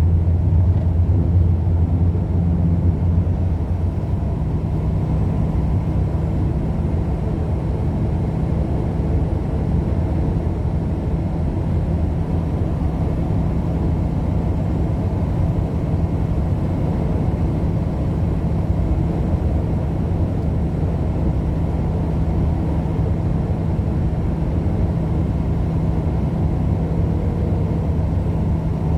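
A vehicle driving along: a steady low rumble of engine and road noise, slightly stronger for the first few seconds.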